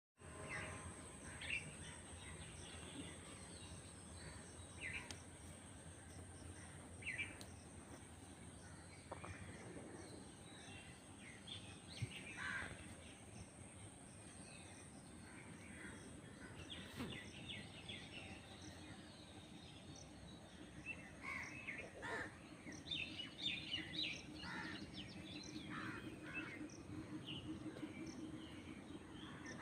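Faint outdoor ambience: scattered short bird chirps and calls over steady background noise, with a continuous thin high-pitched tone. A low pulsing hum joins in the last several seconds.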